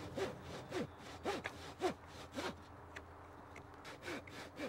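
Knife blade shaving wood by hand: a run of short scraping strokes, a little under two a second, fainter after the first couple of seconds.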